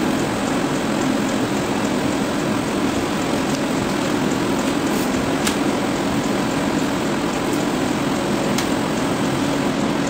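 Steady roar of a gas wok burner and kitchen extractor, mixed with hot oil sizzling as thin chip slices deep-fry. A couple of light sharp clicks, about midway and near the end, as the mesh strainer knocks against the wok.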